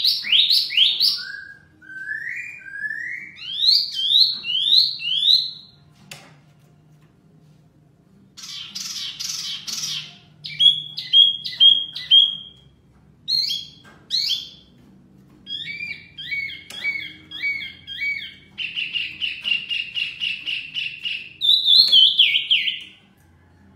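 Wambi mini (mini hwamei) and poksay songbirds singing back and forth in loud, varied whistled phrases: fast runs of rising notes, sharp repeated chirps and a rapid trill, with a short pause about six seconds in.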